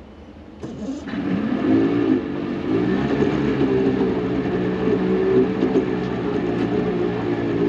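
Outboard motor on a 2001 Triton TR 186 bass boat started about a second in; it catches, rises briefly in pitch and settles into a steady idle.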